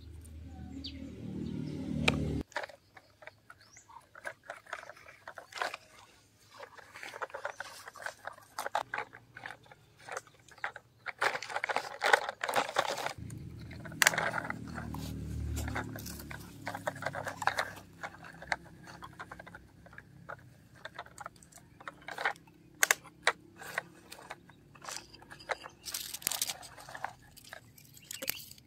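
Plastic toy construction vehicles worked by hand over gravel and dry dirt: irregular crunching and scraping of small stones and loose soil under the wheels and bucket, with many small clicks. A low rumble runs through the first couple of seconds and again around the middle.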